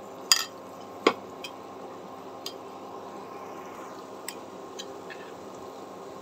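Batter-coated cauliflower chops deep-frying in hot oil in a non-stick kadai, a steady sizzle. Two sharp clinks of the spoon against the pan in the first second, then a few lighter ticks as more chops go in.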